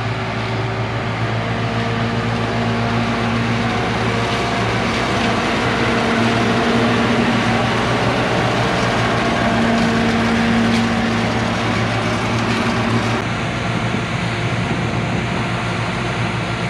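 Heavy diesel harvest machinery running steadily, a continuous engine hum with a dense mechanical rush over it.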